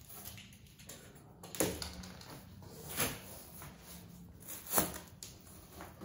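Cardboard flaps of a large shipping carton being pulled open and handled, with three sharp knocks or crackles about a second and a half apart, the last the loudest.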